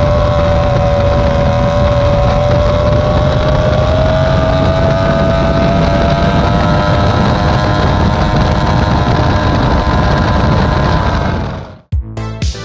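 Mercury Twister 2X inline-six two-stroke racing outboard running at high speed under load, a steady, high engine note that climbs a little about halfway, over wind and water spray. It cuts off near the end, and music begins.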